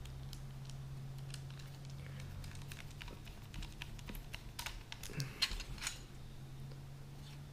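Light, irregular clicks and ticks of a screwdriver driving small screws into a PS3 hard drive's metal caddy, most frequent about five to six seconds in, over a steady low hum.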